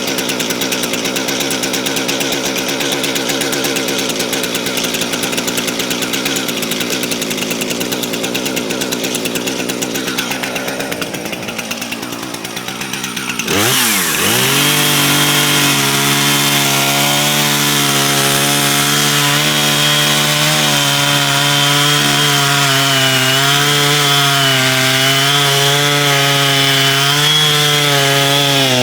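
Chainsaw running on its stock chain while cutting through a log, the engine pitch wavering as it works. About 13 seconds in it drops briefly, then picks up louder at a higher, steadier pitch that later wavers again under load.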